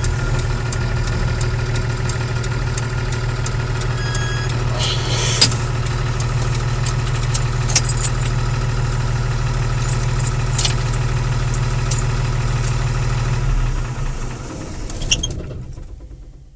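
Diesel engine of a 10-ton lorry idling with a steady low rumble and scattered light ticks, with a short hiss about five seconds in. The sound dies away over the last few seconds.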